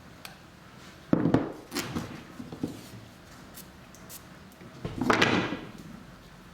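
Handling noises from the clam clamps and wooden mitre pieces: a sharp knock about a second in, a few light clicks, then a longer scraping slide about five seconds in.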